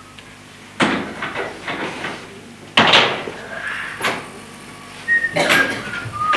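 Three loud bangs and knocks about two seconds apart as a case is handled on a stage, each trailing off briefly, with a few short whistled notes near the end.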